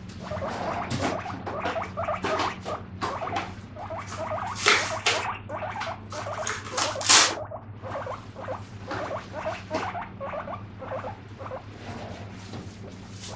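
Guinea pig calling with a long series of short, repeated squeaks ('pui pui'), about two to three a second, prompted by dishes being washed nearby. A few louder sharp clinks or knocks come near the middle, over a steady low hum.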